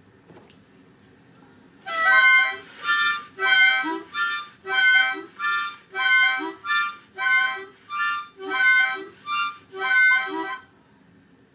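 Harmonica playing a short instrumental break of about a dozen separate notes and chords, starting about two seconds in and stopping about a second before the end.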